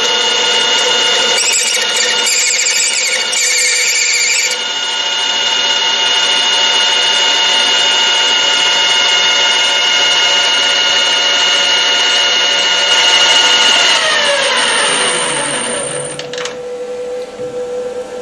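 Metal lathe running under power as a copy attachment takes a finishing cut, a steady machine whine with a harsher, noisier stretch about two to four seconds in. About fourteen seconds in the motor is switched off and the whine falls in pitch as the spindle spins down.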